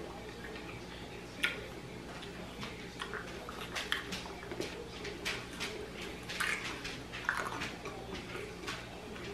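Close-up eating sounds: a mouthful of salad being chewed, with irregular wet clicks and smacks from the mouth. A low steady hum runs underneath.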